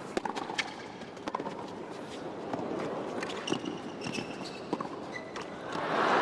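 Tennis rally on a hard court: racket strikes on the ball and short high squeaks of sneakers on the court. Crowd noise swells near the end as the point finishes.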